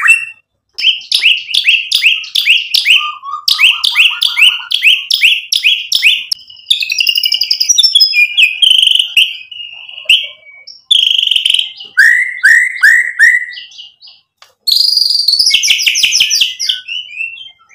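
White-rumped shama (murai batu) singing a varied song of rapid runs of repeated downslurred notes, about four to five a second, broken by clear whistled phrases. There are short pauses just after the start and again about three-quarters of the way through, and the song packs in the mixed borrowed phrases ('isian') of a shama in full song.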